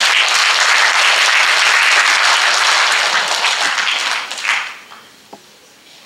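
Audience applauding, the clapping dying away and stopping about five seconds in.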